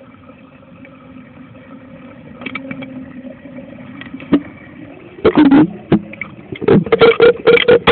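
Muffled sound from a camera sealed inside a Pelican waterproof case under water: a faint steady hum, then from about five seconds in a run of loud knocks and thumps against the case that come faster toward the end.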